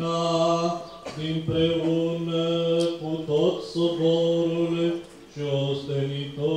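Orthodox liturgical chant sung by men's voices: long held notes in short phrases, with brief pauses between phrases.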